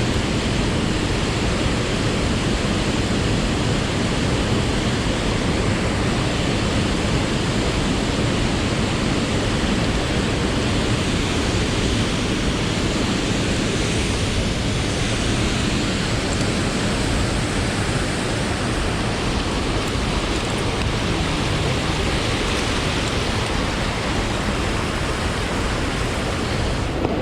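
Steady, loud rush of river water tumbling below a waterfall.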